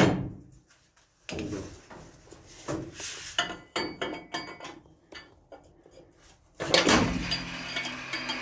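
Metal clanks, clinks and scraping as a brass-cased 5-inch round is loaded by hand into the tray and breech of a 5-inch/38 naval gun. A sharp clank comes right at the start, scattered knocks follow, and a louder, longer scrape begins near the end.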